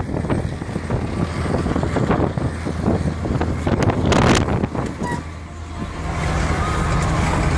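Dust-storm wind buffeting the microphone in gusts, loudest about four seconds in. Near the end the wind drops away to a steady low hum, heard from inside a vehicle's cab with its engine running.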